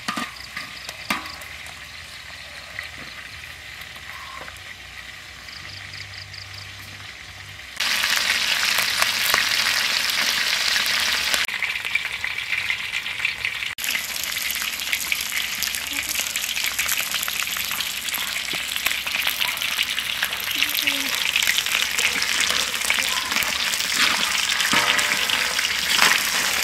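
Fish and eels frying in oil in a large wok, a steady sizzle. It is quieter at first and turns much louder about eight seconds in.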